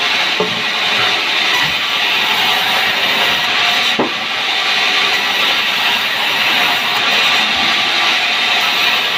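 Sawmill band saw running with a steady, loud hiss, with a single knock about four seconds in.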